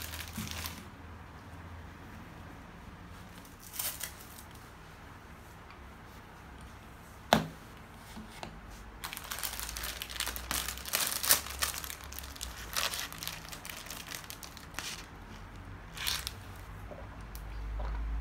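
Plastic food wrapper crinkling and tearing as it is handled and opened, in scattered bursts with a dense stretch in the middle. A single sharp knock about seven seconds in.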